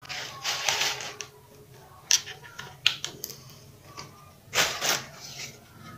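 Hands handling a hard cast epoxy part and a silicone mold over a plastic sheet: crinkling plastic in two bursts, near the start and toward the end, with a few sharp clicks between as the part is worked free of the mold.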